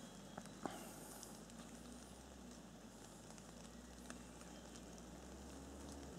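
Near silence: faint, steady outdoor hiss with a low hum and a few small clicks, two early and one about four seconds in.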